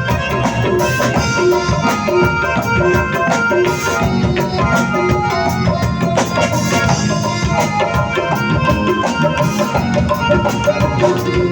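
Live band playing an instrumental passage of a South Asian song, with hand drums keeping a steady beat under a melody.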